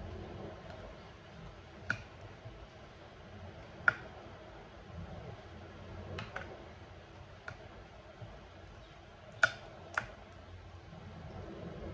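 Spatula knocking against a glass baking dish while spreading custard: about six sharp clicks spread out a second or two apart, the loudest about four and nine and a half seconds in.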